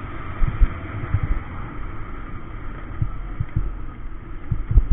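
Honda Click 125i scooter on the move, heard from the rider's camera: a steady engine and road hum with irregular low thumps of wind buffeting the microphone.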